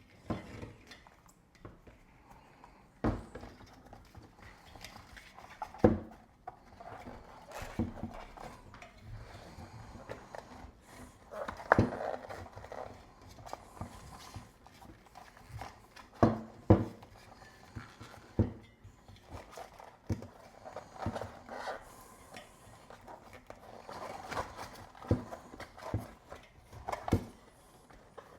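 Irregular knocks, clicks and rubbing of a bicycle wheel being handled while an inner tube is tucked into the tire and worked around the rim by hand.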